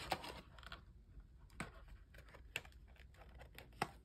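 A thick stack of plastic-sleeved photocards rustling and clicking as it is squeezed into a snug card-sleeve box. There are a few sharp taps, the loudest near the end.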